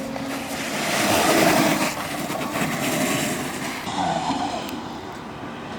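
Freeboard wheels rolling and grinding on pavement: a rough rolling noise that builds to its loudest about a second and a half in, then eases off.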